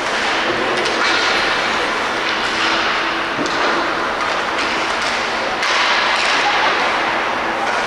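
Live ice hockey play: a steady scraping rush of skates on the ice, broken by several sharp knocks of sticks and puck, under a low steady hum.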